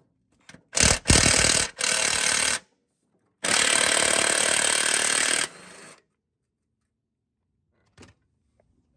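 Cordless impact driver hammering in three bursts, a short one, another short one, then a longer one that drops to a quieter run near the end, as it works loose a rusty engine-mounting bolt on a steel mower deck. A single click follows a few seconds later.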